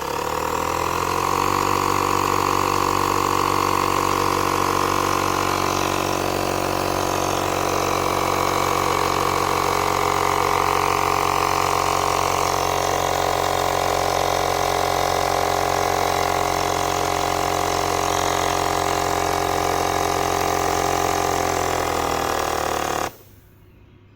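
Small electric compressor of a portable tyre inflator running steadily while pumping up a bicycle tyre. It stops abruptly near the end, shutting itself off on reaching the preset pressure.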